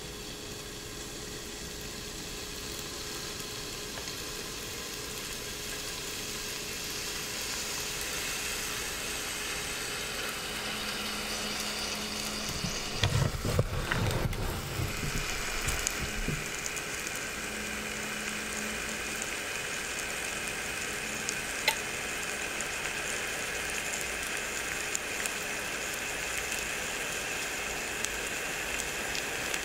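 Croissant dough sizzling and crackling inside a rotating waffle maker, a steady rain-like patter of frying. About halfway through, the machine is rotated on its stand with a brief clatter and rumble, and a single sharp click comes a little later.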